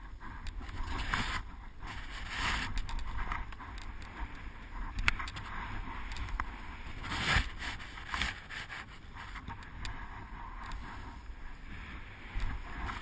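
Skis sliding and turning through powder snow, the hiss of snow surging in uneven bursts with each turn, over a steady low rumble of wind on the helmet-mounted microphone.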